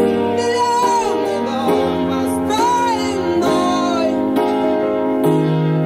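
Early-1980s rock band recording in an instrumental passage: sustained chords under a lead melody that slides up and down in pitch, over a held bass note that changes twice.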